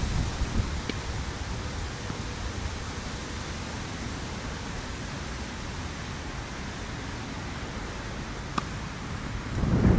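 Steady wind noise on the microphone, with one faint sharp pock near the end as a tennis racket strikes the served ball, followed by low wind buffeting that swells on the microphone.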